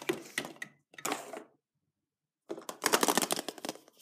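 Hollow plastic surprise eggs clicking and clattering as they are handled and picked up, in three short bursts of rapid clicks.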